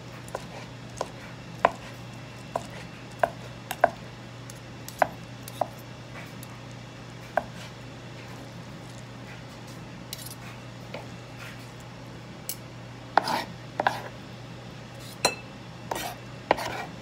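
Knife cutting food on a cutting board: sharp, irregular taps, with a few louder clattering strokes bunched together in the last few seconds. A steady low hum runs underneath.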